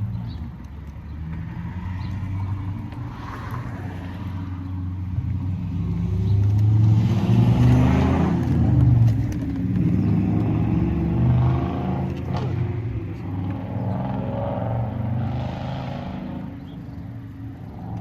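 A motor vehicle's engine passing by, rising to its loudest about eight seconds in and then fading away.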